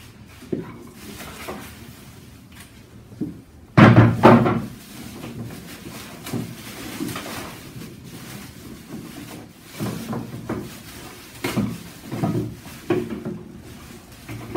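Parts of an unboxed electric grill and their packaging being handled and set down: a loud double knock about four seconds in, then several lighter knocks and clatters later on, with quieter handling noise between.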